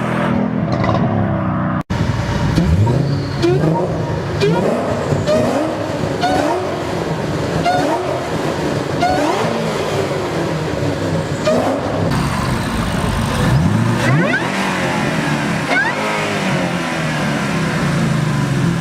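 Car engine revved again and again, its pitch rising and falling about once a second. Later it accelerates with a high forced-induction whine that climbs in pitch, then the revs drop away.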